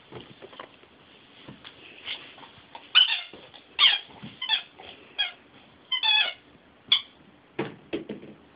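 A dog's squeaky toy squeaking about six times in quick succession as a German Shepherd chews it, each squeak short and pitched, some falling in pitch. A few dull knocks follow near the end.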